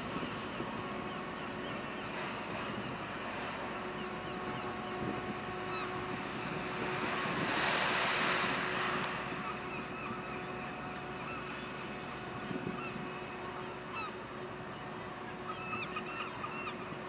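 Tugboat's diesel engine running steadily as the boat manoeuvres away from the quay, a hum with several steady tones. A broad rushing swell rises and fades about halfway through.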